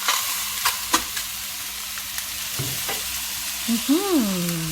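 Chicken pieces sizzling steadily, skin side down, in a hot skillet with no oil, with a few sharp clicks. Near the end a short tone rises and falls in pitch over the sizzle.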